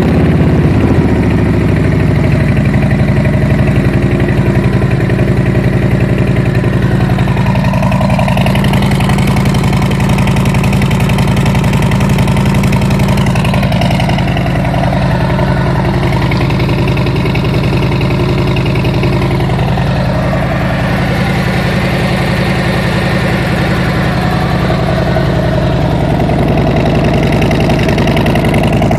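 A 2017 Harley-Davidson Road King Special's Milwaukee-Eight 107 V-twin, just started, idling steadily through Cobra Neighbor Hater slip-on mufflers.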